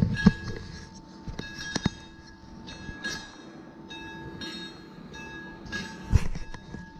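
Electric scooter being ridden: a steady high motor whine over road rumble, with sharp knocks and rattles as it goes over bumps, the loudest just after the start and about six seconds in.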